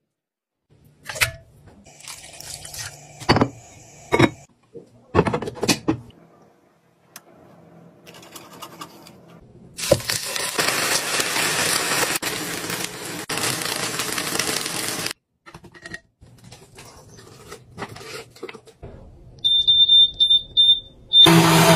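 A few sharp clicks and knocks of a metal can being handled. Then about five seconds of steady sizzling from meat on an electric griddle, a long electronic beep as a touch-panel button is pressed, and near the end a soymilk-maker blender's motor starting up loudly.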